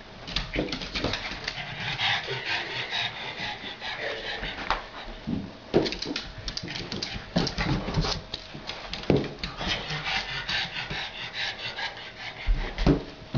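A pug scrambling after a balloon on a hardwood floor: a busy run of claw clicks and scrabbles on the wood, with the balloon bumping and rubbing along.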